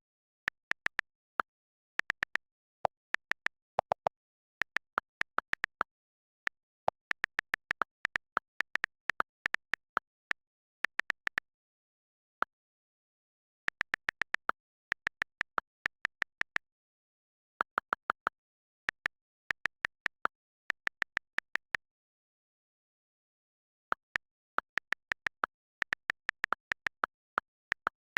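iPhone silent-mode switch flipped over and over: short, sharp clicks in quick irregular runs, with pauses of a second or two between runs.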